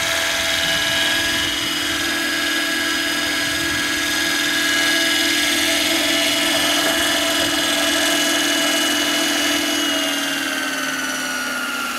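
Radio-controlled scale Bell 429 model helicopter hovering, with a steady motor whine and the sound of its spinning main and tail rotors. Near the end, as it sits on the ground, the pitch begins to fall as the rotor winds down.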